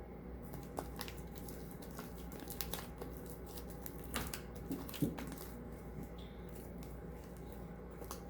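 Hands kneading sticky, not-yet-set shaving-foam slime: scattered small sticky clicks and crackles, the loudest about four and five seconds in.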